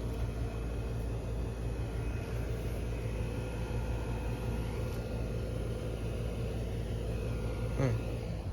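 Outdoor heat pump or air-conditioner condensing units running: a steady compressor hum and fan noise with a constant low drone. One brief louder knock near the end.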